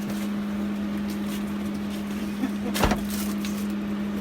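Steady machine hum with one sharp knock, like a hard object set down, a little under three seconds in.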